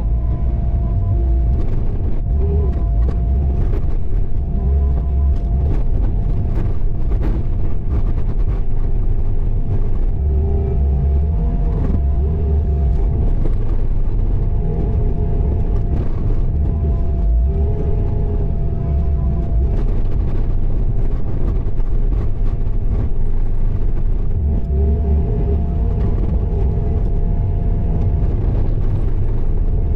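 Bobcat T595 skid steer's diesel engine running hard while moving snow, its low rumble swelling every few seconds as the machine works under load, with a steady high whine over it.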